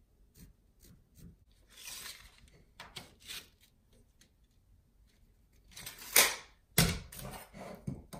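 Woodworking handling sounds: scattered light clicks and short scraping swishes, then a louder scrape about six seconds in and a sharp, heavy knock just under a second later.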